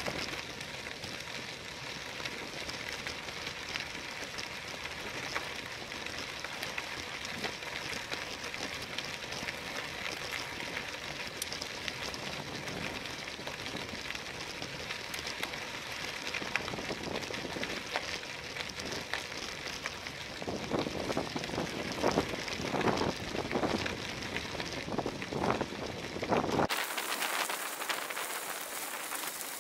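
Bicycle tyres rolling over a gravel road: a steady crunching hiss peppered with small ticks of stones, picked up by a bike-mounted camera. For several seconds past the two-thirds mark it turns louder and rougher, and shortly before the end the deep part of the sound drops out suddenly.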